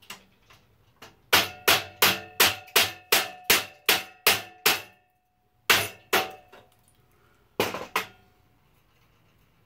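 A hammer driving a wood chisel, chipping leftover material off a clamped part: a quick run of about a dozen sharp blows at roughly four a second, each leaving a brief metallic ring, then after a short pause two more pairs of blows.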